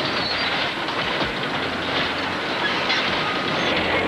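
Tank tracks running, a steady metallic clatter and rumble with a few high squeals of metal on metal.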